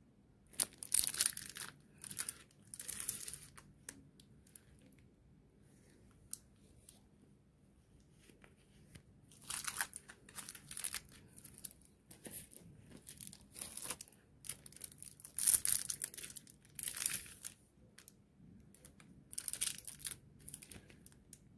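Clear plastic packaging sleeves on makeup brushes crinkling and rustling as gloved hands handle them, in a series of short bursts with quiet gaps between.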